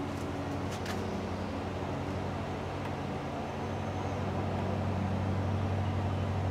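Steady low machine hum with several steady low tones, and a couple of faint clicks about a second in.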